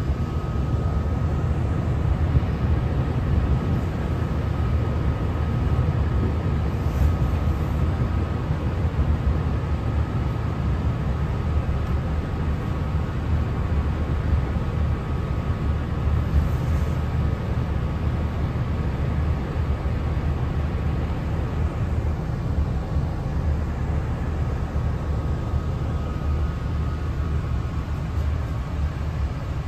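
Cabin noise of a Translink NIR Class 3000 diesel multiple unit on the move: a steady low rumble from the running train, with a faint steady whine above it.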